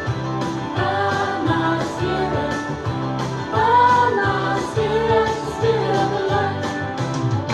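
Christian praise song playing, its lyrics about the Spirit of the Lord: a sung melody over guitar with a steady beat.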